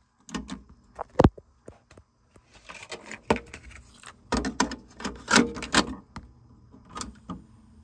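Mechanical clicks and clunks from a TEAC W-350 cassette deck being handled: the eject key is pressed, the cassette door swings open, and a cassette is pushed in and the door snapped shut. The sounds come as separate sharp knocks, busiest and loudest in the middle of the run.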